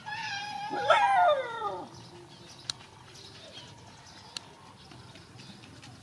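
A dog whining in a high, drawn-out cry for about two seconds, its pitch sliding down at the end, followed by a couple of faint clicks.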